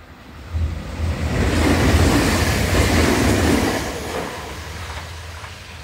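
An electric train passing on the track: its rumble and wheel noise swell about half a second in, are loudest over the middle of the clip, then die away.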